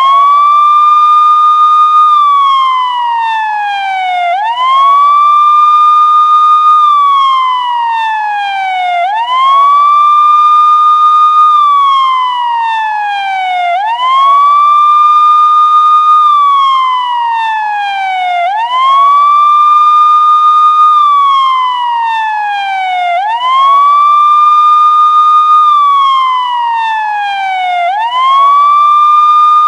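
Police car siren sounding a steady wail, about six cycles in all. Each cycle the pitch rises quickly, holds high for about two seconds, then slides slowly down before rising again, repeating about every four and a half seconds.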